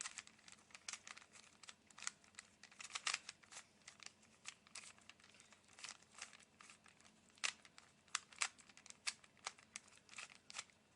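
A Rubik's Cube being scrambled by hand: its plastic layers are twisted in quick, uneven clicking turns, several a second.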